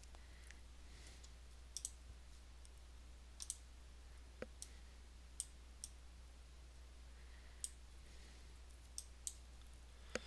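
Faint computer mouse clicks, about a dozen at irregular intervals, over near silence with a low steady hum.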